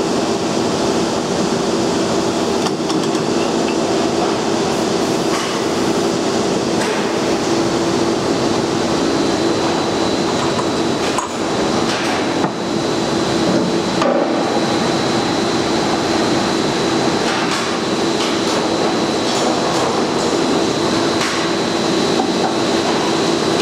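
Metalworking press running steadily while its ram works a steel coupler sleeve: a constant hum with a thin high whine joining about nine seconds in.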